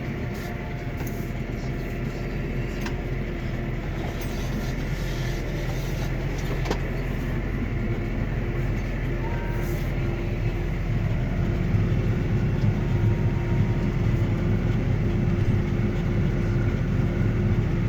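Claas Arion 420 tractor engine running steadily under load while pulling a five-furrow plough. It grows gradually louder over the stretch.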